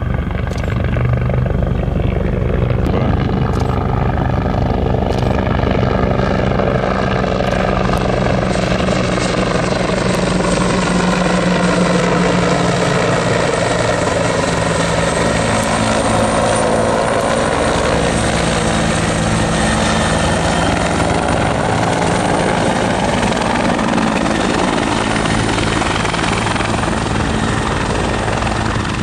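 Firefighting helicopter flying low and coming in to land, its rotor blades and turbine engine running steadily, with a thin high turbine whine over the rotor noise. The rotor pitch slowly rises and falls as it moves.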